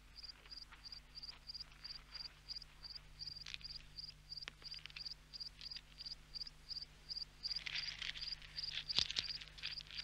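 A cricket chirping steadily and faintly, about four high chirps a second. Scratchy rustling and a sharp click come in between about eight and nine and a half seconds in.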